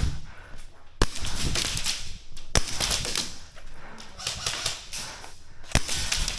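Airsoft gun shots: three single sharp cracks spread over several seconds, with rustling movement and clatter between them.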